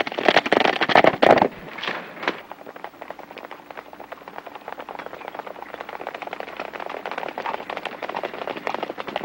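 Hoofbeats of several galloping horses, a rapid clatter that is loudest in the first second and a half and then goes on steadier and quieter.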